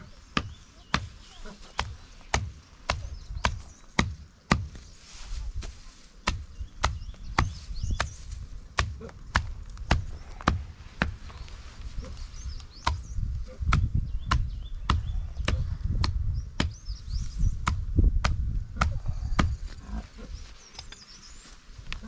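Steady chopping with a blade, sharp strokes falling about twice a second.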